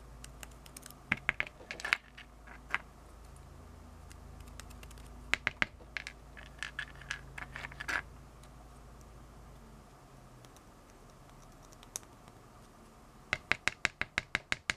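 Metal tweezers tapping and scraping inside small white plastic motor mounts, knocking leftover powder out of their square holes. The sound is bursts of quick light clicks a few seconds apart, with the last and fastest run near the end.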